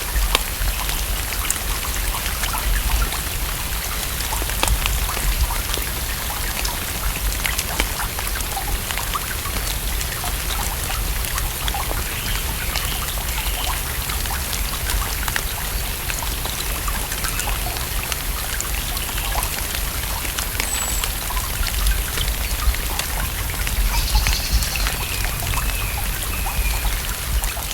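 Steady rain falling on a lake, a dense patter of drops striking the water over a low rumble. A few faint short calls sound now and then behind it.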